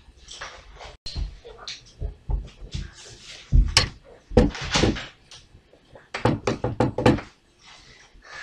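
Irregular knocks, clicks and dull thuds of hands handling beads and toy parts, with a quick run of clicks about three quarters of the way through.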